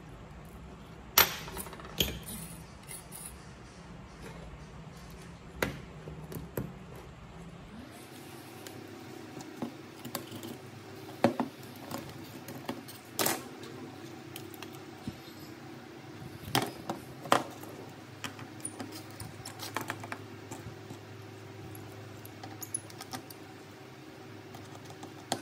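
Small metal tools and phone parts clicking and tapping on a workbench during a smartphone teardown: scattered sharp clicks over a steady low hum. The background hum changes about eight seconds in.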